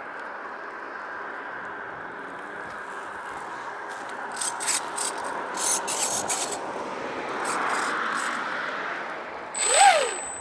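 Steady outdoor background noise with scattered scraping sounds, then near the end a short, loud whine that rises and falls in pitch.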